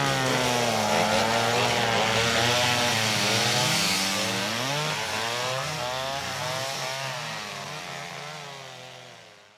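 Chainsaw engine running and being revved up and down repeatedly, fading out near the end.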